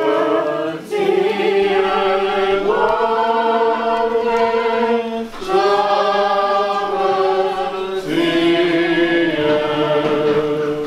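Orthodox church choir singing a cappella in slow, held chords over four phrases, the liturgical response sung right after the Gospel reading.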